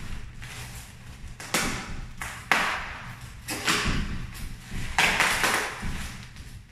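Plastic parcel wrapping crinkling in several short bursts as it is handled and cut open.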